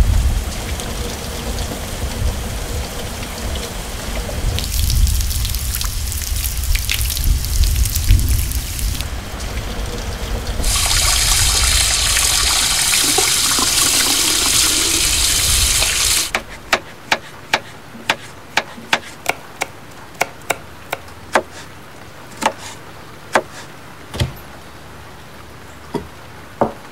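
Rain falling steadily, then a kitchen tap running in a steady hiss as tomatoes are rinsed in a plastic basket under it, cut off abruptly about sixteen seconds in. After that comes a run of about a dozen short sharp clicks and knocks of plastic containers and kitchenware being handled.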